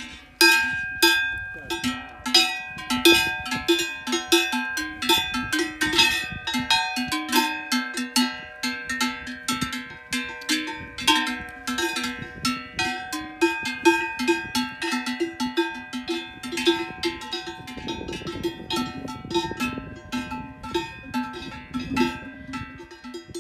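Bells on grazing cattle clanking irregularly, several bells of different pitches ringing and overlapping.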